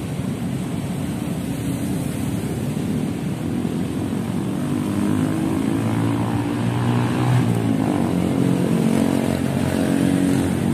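Noisy road traffic from the street beside the lake, with a vehicle engine's hum building and growing louder from about halfway through.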